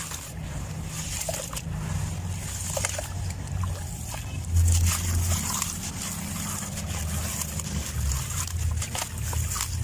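Crumbling sand-cement clumps: irregular small crackles and gritty trickling over a low rumble, a little louder about halfway through.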